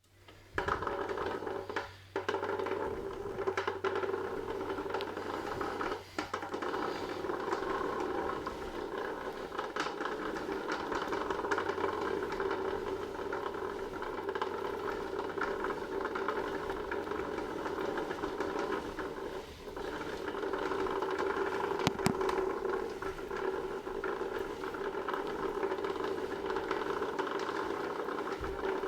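Tacx Antares bike rollers spinning with a loud, steady grating, the sign of failing ball bearings in the drums. The level dips briefly a few times, and there is one sharp click about three-quarters of the way in.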